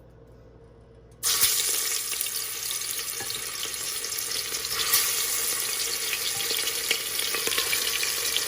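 Marinated chicken pieces going into hot oil in a pressure cooker: a loud sizzle starts suddenly about a second in and keeps going steadily as the chicken fries.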